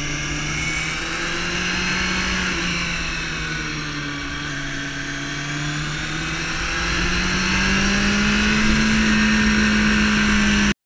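Sport motorcycle engine running under way through bends. Its pitch holds, dips slightly midway, then rises and grows louder from about two-thirds of the way through as it accelerates. The sound cuts off suddenly at the very end.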